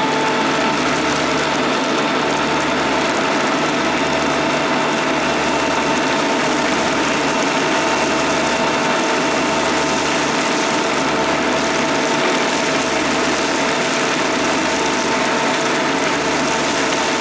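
Kubota D1105 three-cylinder diesel engine running steadily at a constant speed.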